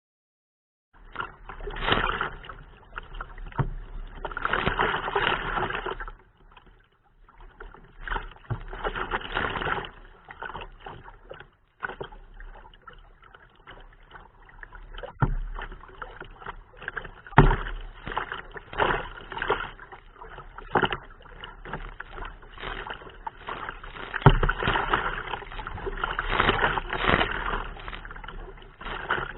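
Perception Hook Angler 10.5 kayak being paddled in wind and waves: paddle strokes and water splashing and sloshing against the hull in uneven surges, with scattered sharp knocks. Wind gusts on the microphone add a low rumble.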